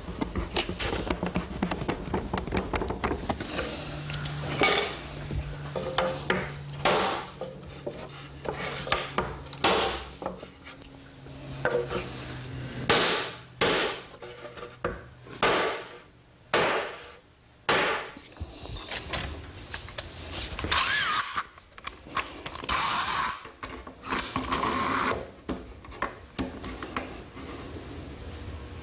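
Mallet blows knocking glued shelves down into their dadoes in a cabinet side: a long series of irregularly spaced sharp knocks. Near the end, scraping and clicking of a metal bar clamp being slid along its bar and tightened.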